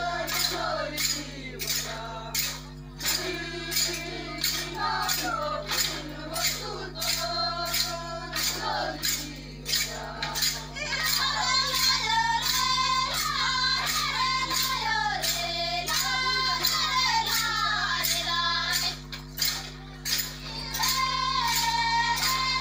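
Group of women singing a folk song over a sharp, even clicking beat, a little over two clicks a second. The singing grows louder about eleven seconds in.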